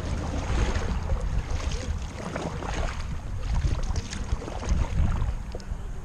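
Kayak paddling: a double-bladed paddle dipping and splashing in river water with each stroke, over a low, uneven rumble of wind on the microphone.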